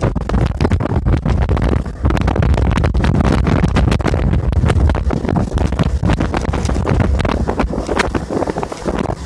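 Wind buffeting the phone's microphone on a boat running at speed, over the steady run of its 1989 Yamaha 40 hp two-stroke outboard. The wind rumble is the loudest part, with frequent sharp gusts on the microphone.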